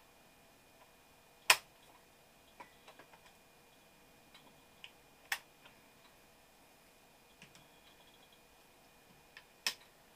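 Sharp plastic clicks and light taps from handling a PowerBook G4 laptop as its battery is released and removed: three loud clicks about four seconds apart, with scattered fainter ticks between them.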